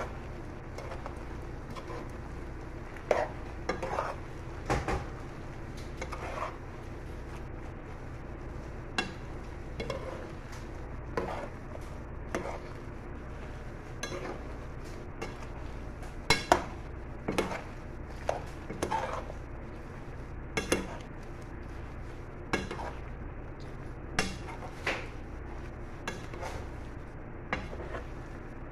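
A cooking utensil knocking and scraping against a metal pan as a panful of shrimp and vegetables is stirred, in irregular knocks every second or so over a steady low hum.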